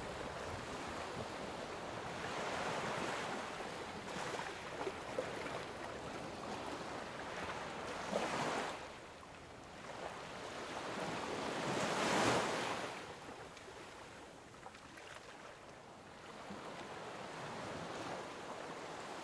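Sea waves washing, with wind, as a steady rushing noise that surges and fades, swelling most strongly twice, about eight and twelve seconds in.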